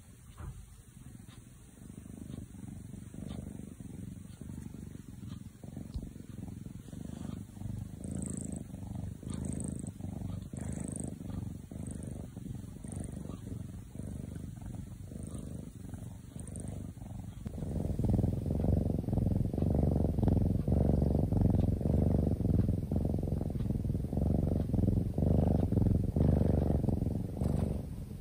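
Tortoiseshell kitten purring steadily while stroked. It grows clearly louder about two-thirds of the way through.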